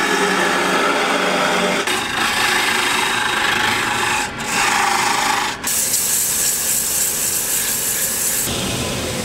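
Wood lathe spinning a wooden blank while a turning chisel cuts into it, followed from about halfway by sandpaper on a block hissing against the spinning wood. The sound changes abruptly several times.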